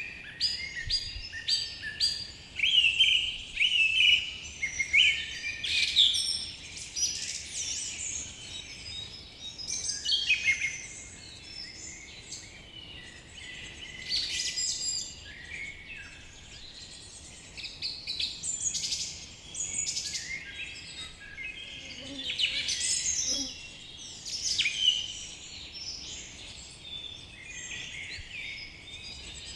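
Several small birds chirping and singing, quick overlapping chirps and trills in clusters that come and go, over a faint steady background hiss.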